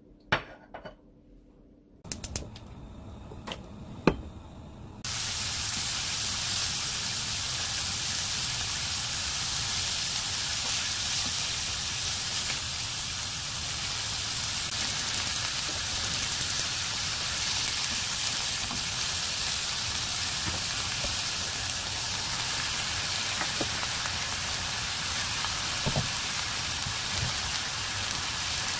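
Strips of beef sizzling in hot oil in a non-stick wok: a loud, steady frying hiss that starts suddenly about five seconds in, with faint utensil ticks now and then. Before it come a few sharp clicks.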